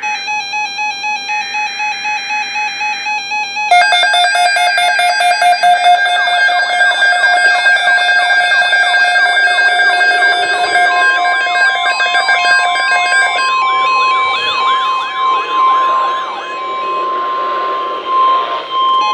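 Several weather alert radios sounding their alarms at once. A rapidly pulsing beep tone comes first; about four seconds in, louder overlapping alarm tones take over, with warbling, siren-like sweeps. From about eleven seconds a steady single tone, the NOAA Weather Radio warning alarm tone, holds on under them.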